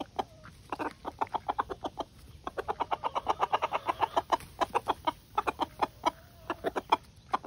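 Rooster food-calling (tidbitting): a rapid run of short clucks, about six a second, with a brief pause about two seconds in. It is the call a rooster makes to bring his hens over to food he has found, a sign of a rooster that looks after his flock.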